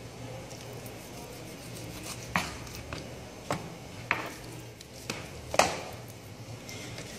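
Raw chicken being handled on a plastic cutting board: four sharp, wet slaps and knocks of meat and hands against the board, the loudest a little past halfway, over a steady low hum.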